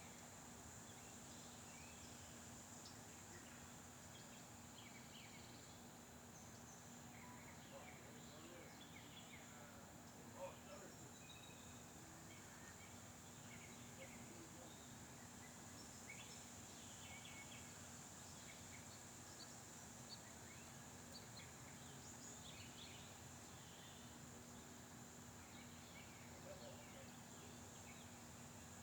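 Near silence: faint outdoor background with a steady high whine and scattered faint chirps.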